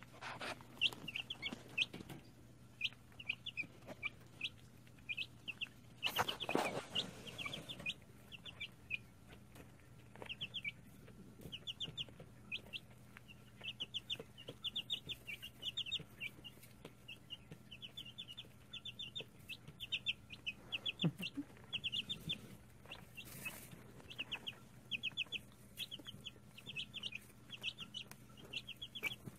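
Young chicks peeping throughout, in quick runs of short high-pitched cheeps, with a brief rustle about six seconds in.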